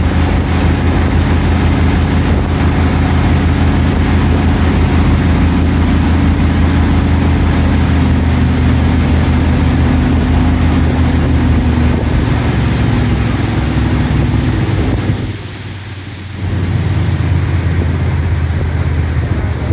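Outboard motor of a small aluminium boat running steadily, then easing off: its pitch sags, it drops away for about a second, and it picks up again at a lower speed as the boat slows toward the landing.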